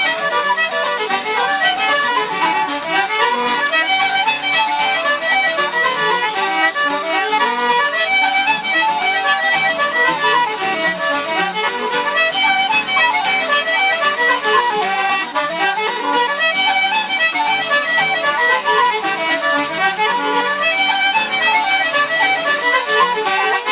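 An Irish traditional band plays a fast reel, with fiddle carrying a dense, running melody over accompaniment.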